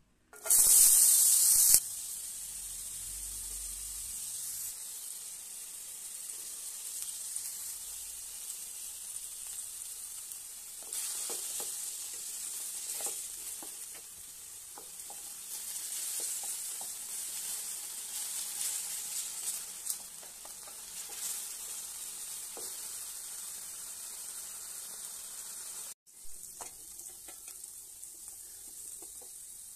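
Chopped carrots dropped into hot oil in a steel pan, with a loud burst of sizzling about half a second in. Then a steady frying sizzle as carrots, green beans and sweet corn are stirred, with occasional scrapes and taps of the spatula on the pan and a brief break near the end.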